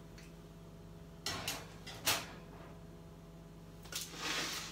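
Metal baking tray being slid into an oven: a clatter a little over a second in, a sharp knock about two seconds in, and a scraping rustle near the end.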